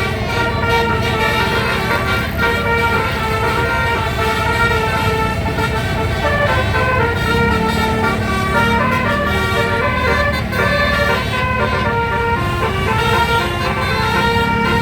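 Bus's 12-note 'telolet basuri' musical air horn playing a melody of stepping notes, over the low rumble of the running engine.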